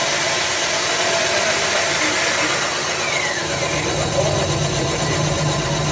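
Steady mechanical running noise from a workshop boring machine's motor, with a deeper hum coming in about three and a half seconds in.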